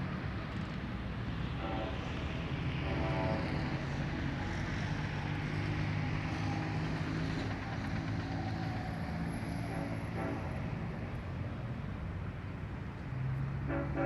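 Diesel locomotives of a freight train running with a steady low engine drone, with a few brief higher-pitched tones about two and three seconds in, again near ten seconds and near the end.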